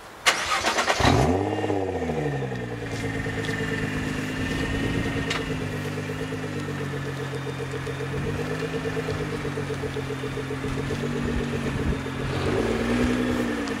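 Nissan GT-R's 3.8-litre twin-turbo V6 starting up: the starter cranks for under a second, the engine catches with a rev flare that rises and falls back over about a second and a half, then idles steadily, with a few short throttle blips near the end.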